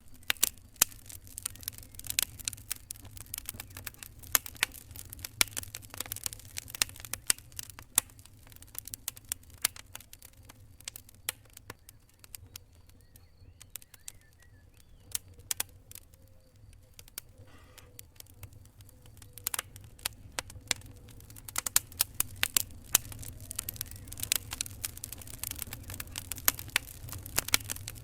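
Fire crackling: irregular sharp pops and snaps over a low steady rumble, thinning out for a few seconds around the middle and growing busier near the end.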